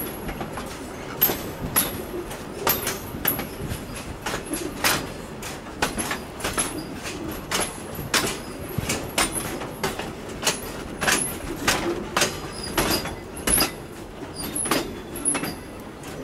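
Train cars rolling along the track: wheels clacking and knocking at rail joints at an uneven pace over a steady rumble, with faint brief high squeaks.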